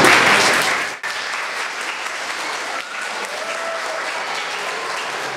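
An audience of schoolchildren applauding: clapping that is loudest for about the first second, then drops and goes on steadily.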